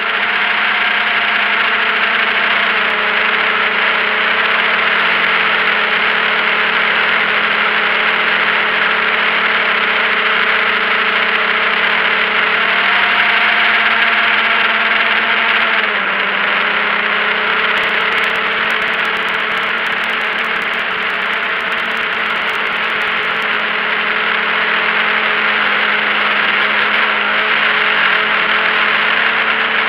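A drone's electric motors and propellers running steadily in flight, heard from the onboard camera as a loud whirring hum over a hiss. The pitch shifts slightly as the motor speed changes, rising about 13 seconds in and dropping back a few seconds later.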